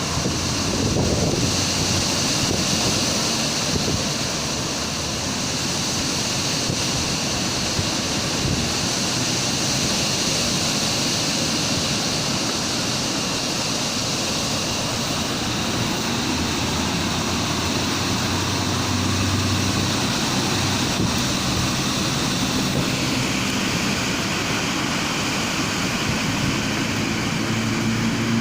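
Strong wind blowing in a steady, loud rush. A low hum comes in near the end.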